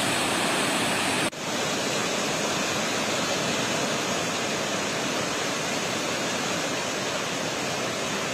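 Steady rushing of the Trishuli River in flood, its fast, swollen muddy water running high. About a second in, the sound drops out for an instant.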